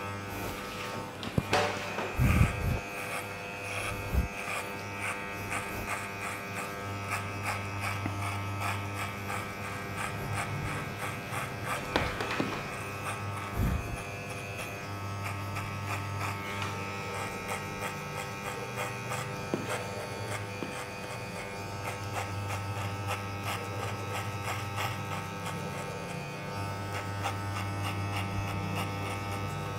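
Electric hair clipper with a 1/2 guard buzzing steadily as it cuts short hair, the hum swelling and easing as it moves through the hair. A few light knocks of handling about 2, 4, 12 and 14 seconds in.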